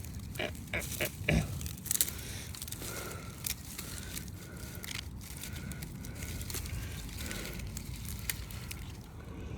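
Rustling and scraping handling noise over a low wind rumble, with a quick run of sharp clicks about a second in and a faint short tone recurring every half second or so.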